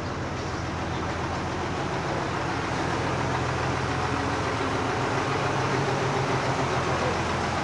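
Steady running of a motor vehicle's engine, a low hum over street noise, growing slightly louder about three seconds in.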